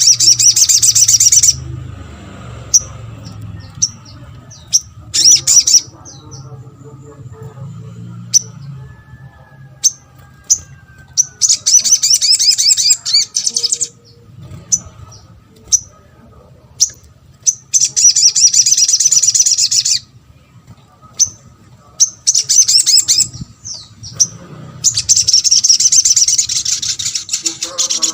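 Spiderhunter (sogon) singing: several loud bursts of rapid, very high repeated notes, each lasting one to three seconds, with single sharp chips in between.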